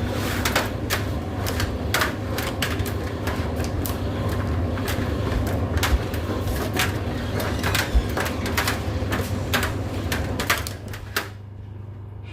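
Indesit IDC8T3 condenser tumble dryer running: a steady motor hum with rapid, irregular clicks and knocks from the turning drum. The clatter stops and the sound drops about eleven seconds in.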